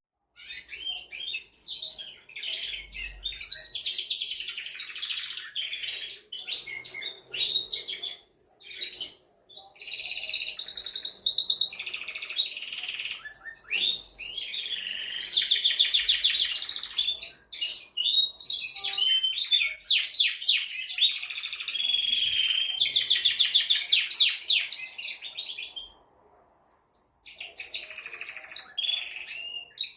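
Male domestic canary singing: long warbling phrases and fast rolling trills of rapidly repeated high notes, broken by a few short pauses.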